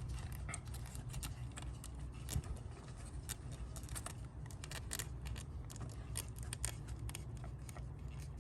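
Irregular small metallic clicks and scrapes of a battery cable terminal and its nut and washers being handled and fitted by hand, over a steady low hum.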